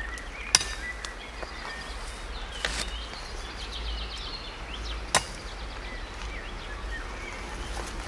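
Thin green branches being bent and snapped by hand, giving three sharp cracks a couple of seconds apart, with birds chirping over a steady outdoor background.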